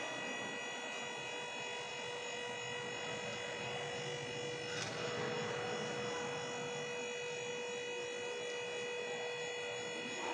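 Scissor lift's electric hydraulic power unit running with a steady motor hum and whine, with a single click about five seconds in.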